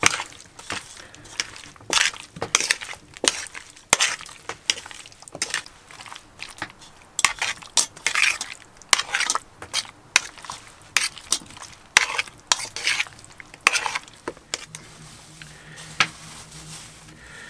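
A spoon scraping and knocking against the sides of a metal pot as raw chicken pieces in ketchup are stirred, with irregular strokes and wet squelching of the meat. The stirring stops about fourteen seconds in.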